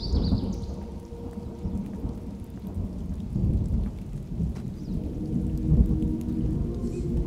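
Rolling thunder, a deep uneven rumble that swells just after the start and again about six seconds in.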